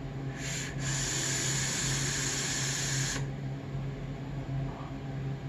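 Juggerknot V2 dual-coil RTA being drawn on for about three seconds: a steady airy hiss of air pulled through its top airflow, which is set half open and restrictive. The hiss starts with a brief break and cuts off suddenly.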